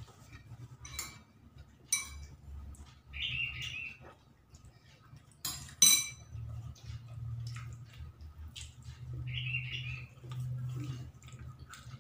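Dishes clinking during a meal eaten by hand. Small clicks come at about one and two seconds in, and a sharp, ringing clink of a spoon against a ceramic bowl near six seconds, when chayote is moved from the soup bowl to the plate. Soft chewing runs between the clinks.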